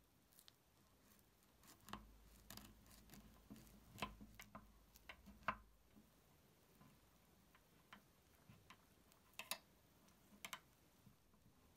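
Irregular light clicks and taps of kitchen utensils and containers being handled, bunched in the first half and again near the end, the loudest about halfway through.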